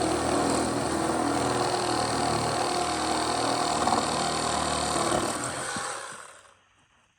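Electric power tool motor switching on abruptly, running steadily for about six seconds, then spinning down and stopping.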